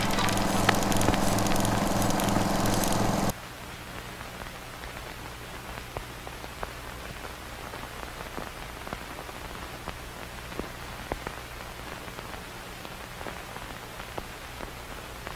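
Music with sustained notes stops abruptly about three seconds in, leaving faint vintage-style crackle with scattered pops over a low steady hum, the surface noise of an old record or film soundtrack.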